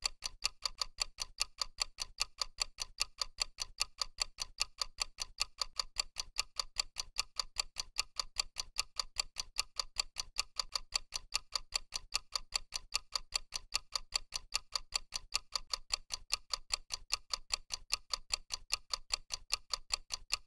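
Clock-style ticking sound effect of a countdown timer: a fast, perfectly even run of sharp ticks.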